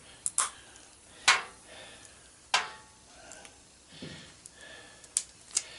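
Sharp clicks and snaps of hand tools working on a washing machine's power cord, about six in all, the loudest about a second in, with a dull knock near the four-second mark.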